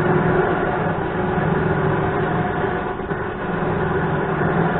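Electric trailer winch motor running steadily under its wireless remote, a continuous mechanical whine with a low hum underneath.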